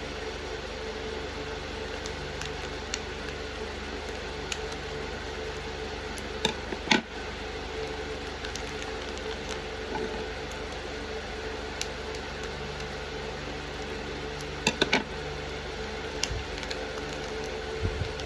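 Steady room hum, like a fan or air conditioner, with a few short sharp clicks and crinkles of small plastic toy packaging being handled, the loudest near the middle and again about three quarters of the way through.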